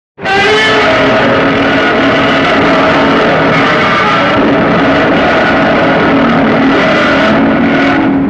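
Original 1954 Godzilla roar, the film sound effect made by drawing a resin-coated leather glove along a double bass string: one long, steady call with a stack of pitched tones. It starts abruptly just after the start and holds level throughout.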